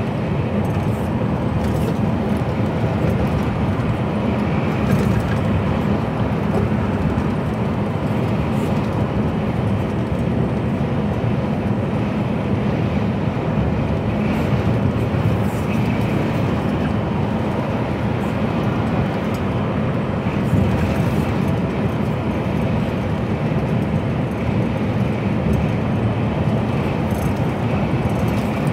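Steady cab noise of an HGV container lorry cruising on a motorway: a constant low drone of engine and tyre and road noise.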